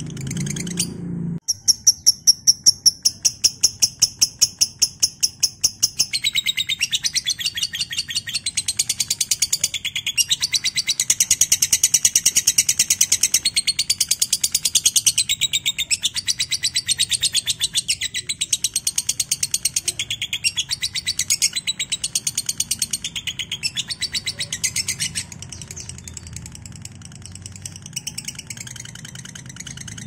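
Lovebird's ngekek: a long, unbroken run of rapid, shrill chattering chirps. It starts about a second and a half in as a string of loud, evenly spaced chirps, turns into a denser, busier chatter after a few seconds, and goes on more quietly for the last few seconds. A low hum stops as the chatter begins.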